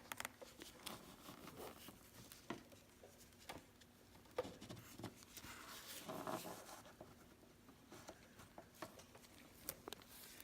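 Faint, scattered clicks, taps and scraping of a plastic-framed air filter being worked into the motorcycle's airbox housing, with a short rustling scrape about six seconds in as it is pushed to sit in the groove.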